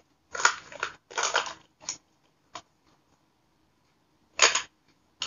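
Clear plastic makeup pouch crinkling and rustling as cosmetics are handled and packed into it, in about five short bursts with silent gaps between.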